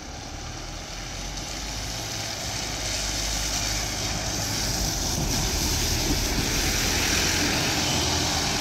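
A single-deck bus approaching and driving past on a wet road: its engine runs and its tyres hiss on the wet surface, growing louder to a peak about six to seven seconds in, then easing slightly.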